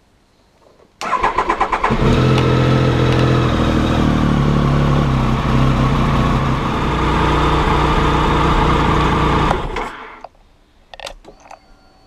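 Triumph Sprint ST 1050's inline three-cylinder engine, fitted with a TOR exhaust, cranked on the electric starter from cold: about a second of rapid cranking pulses, then it catches and idles steadily for about eight seconds before the sound cuts off.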